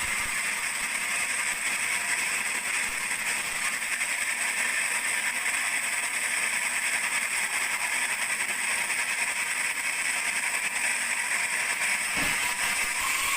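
Sawmill saw running through a large teak log: a steady, even high hiss with little low rumble.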